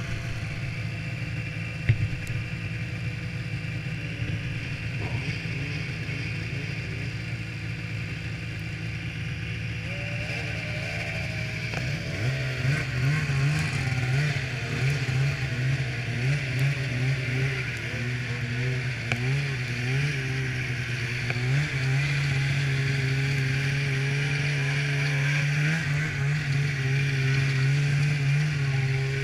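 Polaris snowmobile engine idling steadily, then taking throttle about twelve seconds in as the sled moves off, its pitch wavering up and down with the throttle while it runs along the trail.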